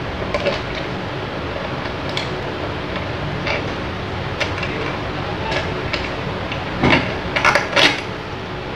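Scattered metal clicks and clinks of tools and parts being handled during disassembly of a gondola hoist, with a cluster of louder clanks near the end, over a steady background hum.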